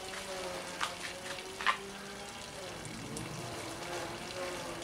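Bilge water running out of a small boat's open drain-plug hole and splashing onto the grass, with a steady low hum beneath and a couple of short ticks about a second in.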